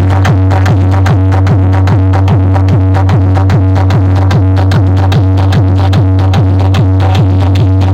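Loud electronic dance music played through a DJ sound system: a fast kick-drum beat, about four a second, over a constant heavy bass tone.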